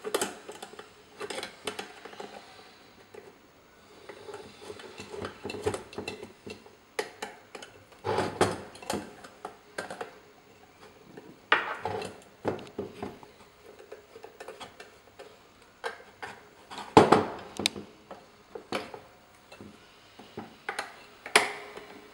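Irregular metallic clicks, clinks and knocks of a small wheel-and-tyre assembly being fastened and handled on a drywall tool's back axle. The loudest knock comes about two-thirds of the way through.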